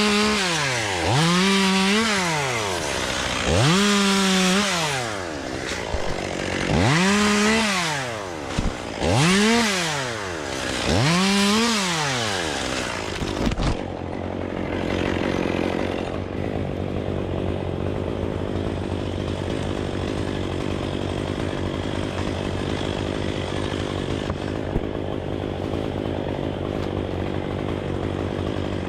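Chainsaw engine revving up and falling back about six times in quick succession, then settling to a steady idle about halfway through.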